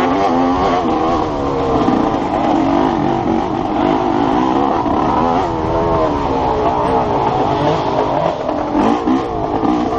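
Enduro motorcycle engine revving up and down continually under hard riding on a dirt trail, with its pitch rising and falling through the gears and throttle changes.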